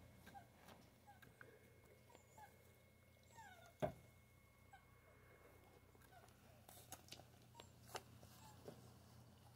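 Faint, scattered high squeaks and whimpers of young puppies nursing from their mother, with a soft knock about four seconds in.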